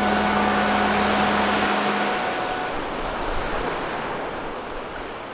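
Sea surf washing onto a beach: a steady rush of breaking waves that fades out toward the end. The last held notes of background music die away about two and a half seconds in.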